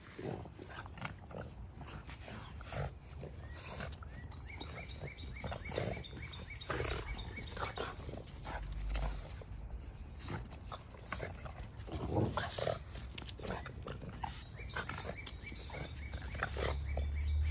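Two Boston terriers play-fighting over a ball, making short, irregular dog noises.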